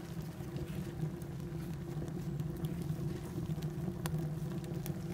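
Lepus rocket stove drawing hard with no pot on top: a steady low rumble and burble ('Bullern') from the strong draft through the vertical burn chamber, the sign of a fully caught, hot burn, with a few faint crackles from the wood.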